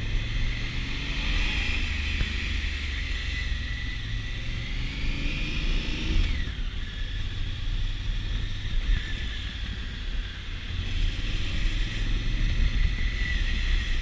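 Honda Africa Twin CRF1000L's parallel-twin engine running under way, with a steady low rumble; the revs climb for a couple of seconds about five seconds in, then drop back.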